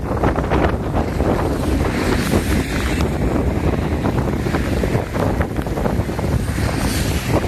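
Wind buffeting the microphone over a steady rush of rainwater and flood runoff.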